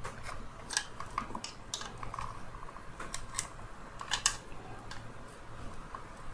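Small screwdriver tip clicking and scraping against the plastic housing of a Dyson V10 handle as its clips are pressed and pried, a scatter of light ticks with a few sharper clicks.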